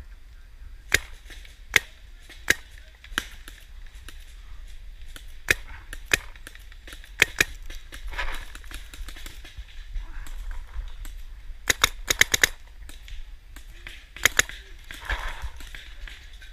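Paintball markers firing: scattered single sharp pops through the first half, then quick bursts of several shots in a row past the middle and again near the end.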